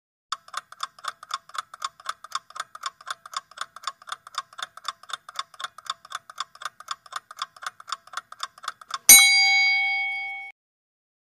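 Countdown-timer sound effect: a clock ticking fast and evenly, about four ticks a second, ended by a single loud bell ding that rings on for about a second and a half and cuts off abruptly, signalling that time is up.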